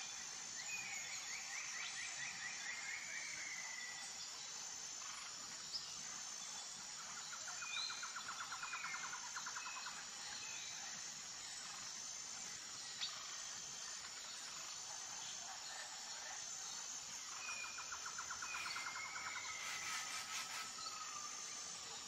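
Faint natural ambience: birds chirping, with a rapid trill that comes back three times, over a steady high insect buzz.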